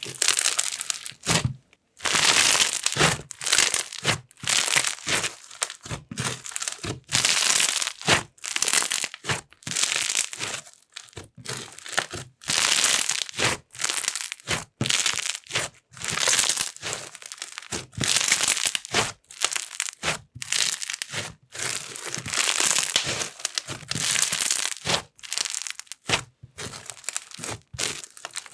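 Hands squeezing and pressing a bingsu bead slime, its tiny plastic beads crunching and crackling. The crackling comes in repeated bursts of about a second, each squeeze followed by a short pause.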